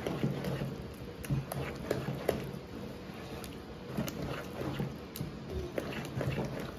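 A wooden spoon stirring thick grated-cassava cake batter in a plastic bowl, making irregular soft scrapes and knocks against the bowl.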